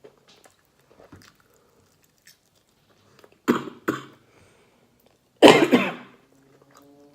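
A woman coughing: two short sharp coughs about three and a half seconds in, then a longer, louder cough about two seconds later.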